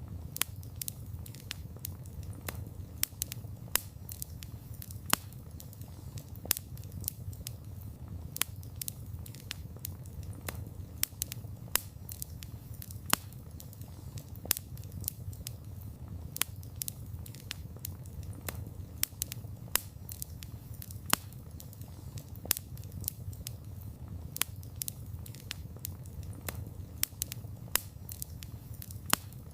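Campfire of burning wood crackling and popping: a steady low rumble of flames under many sharp, irregular snaps, several a second, some much louder than the rest.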